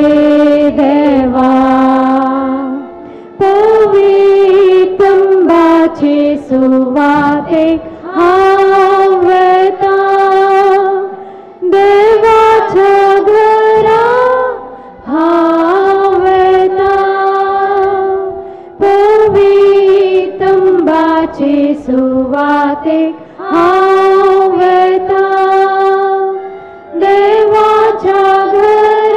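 A woman's voice singing a hymn, in sung phrases of a few seconds each with short breaks between them and long held notes.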